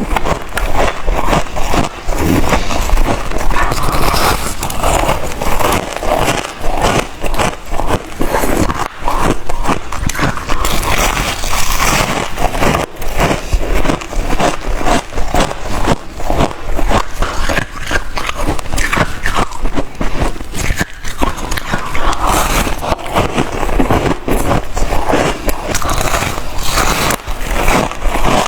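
White freezer ice being bitten and chewed close to the microphone: a dense, continuous run of loud crunches.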